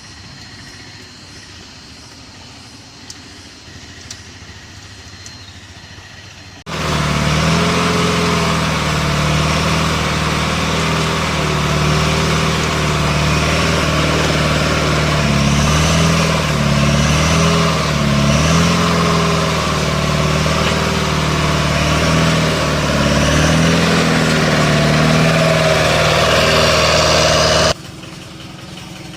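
Yanmar excavator's diesel engine running loudly, its pitch dipping and rising a little as it labours and recovers. It comes in suddenly about seven seconds in, after a quieter stretch with a faint steady high whine, and cuts off abruptly near the end.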